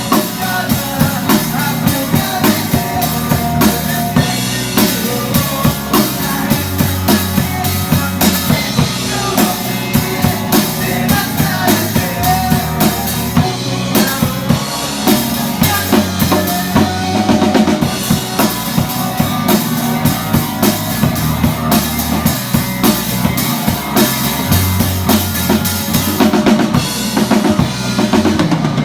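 A band playing live, heard from right beside the drum kit: the kick drum, snare and cymbals are loudest, keeping a steady beat over bass and other instruments.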